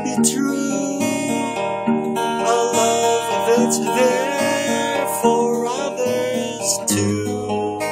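Acoustic guitar played alone, chords ringing one into the next.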